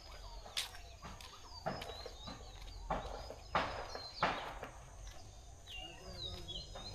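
Small birds chirping and whistling throughout, with a handful of short, louder calls from domestic fowl in between, over a steady low rumble.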